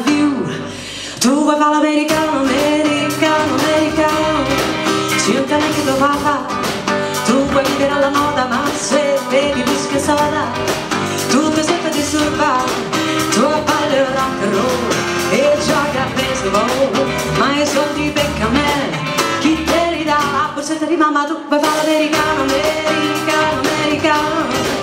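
Live band playing: strummed acoustic guitar, bass and drums, with a woman's voice singing over them. The music thins out briefly about a second in, then comes back in full.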